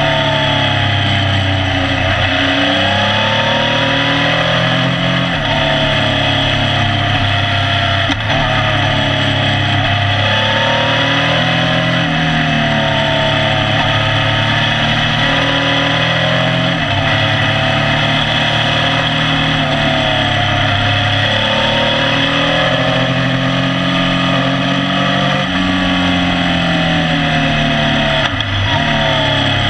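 Motorcycle engine heard from the rear of the moving bike, its revs climbing and then dropping sharply every few seconds as it is ridden hard through a series of bends, with steady wind and road rush underneath.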